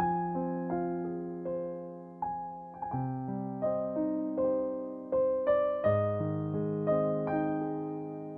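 Soft background piano music: slow, gentle notes over sustained chords that change every few seconds.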